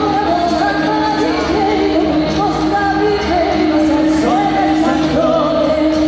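Live band playing loud amplified pop dance music, with a singer's voice over it.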